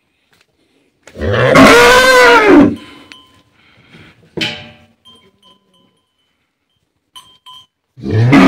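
Cattle mooing: one loud moo about a second in that rises and then falls in pitch over about a second and a half, and a second, steadier moo starting near the end.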